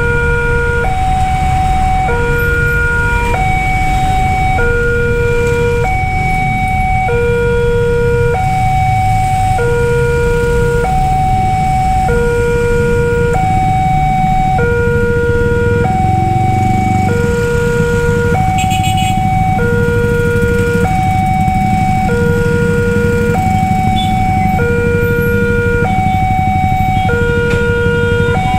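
Railway level-crossing alarm sounding its electronic two-tone bell, a low tone and a higher tone alternating about once a second, warning of an approaching train with the barriers down. Waiting road traffic rumbles underneath.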